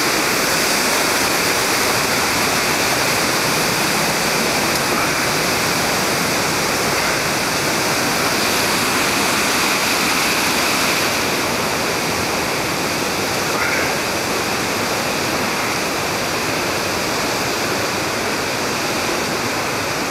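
Steady rush of a fast, muddy creek pouring over rapids and falls.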